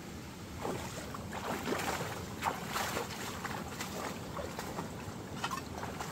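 Shallow muddy stream rushing and splashing around plant stems, with irregular gurgles and splashes over a steady wash.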